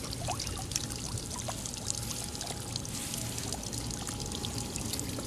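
Outdoor background noise: a steady low rumble with scattered faint clicks and a few short high chirps.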